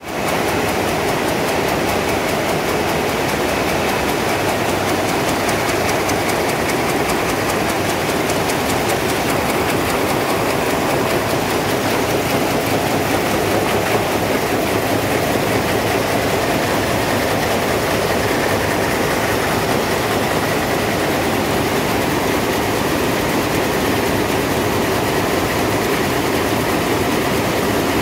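Rows of Vamatex Leonardo rapier dobby looms running together in a weaving shed, making a loud, steady, fast mechanical clatter.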